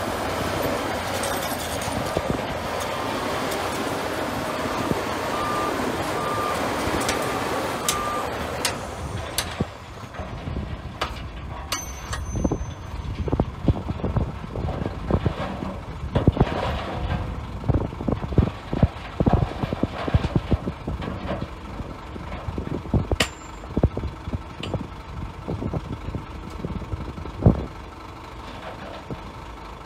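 Heavy construction machinery running with a reversing alarm beeping over loud engine noise for about the first eight seconds. The engine then quietens and a long run of irregular clanks and knocks follows.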